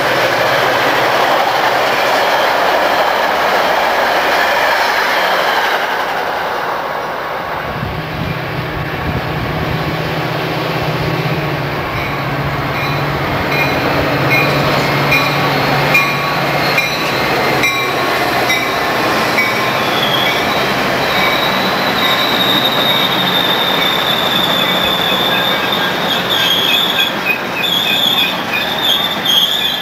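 Diesel-hauled bilevel commuter trains passing on a busy main line. First comes the rumble and wheel clatter of one train's cars going by, then the low drone of a second train's diesel locomotive as it approaches. From about two-thirds of the way through, a high, wavering wheel squeal sounds as that train slows to a stop at the platform.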